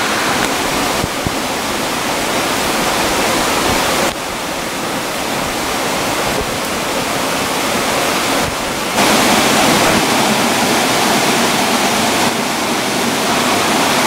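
Waterfall rushing, a loud steady noise of falling water that changes level abruptly several times, louder from about nine seconds in.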